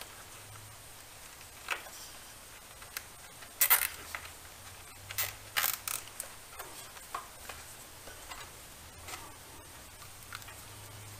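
Hands handling a mower's wiring harness and plastic zip ties: scattered small clicks and rustles, the sharpest about four seconds in and a few more between five and six seconds.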